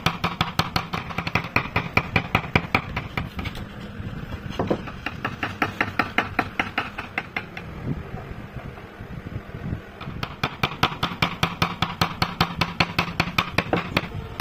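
A carving gouge tapped rapidly into a wooden board, about five sharp wooden knocks a second, as it cuts a curved outline. The knocks grow fainter for several seconds in the middle and come back strong about ten seconds in, over a steady low hum.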